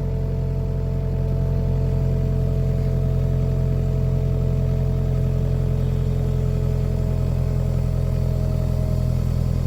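Mini excavator's diesel engine running at a steady speed, with a steady whine over the hum, while the machine is worked to lift itself on its boom.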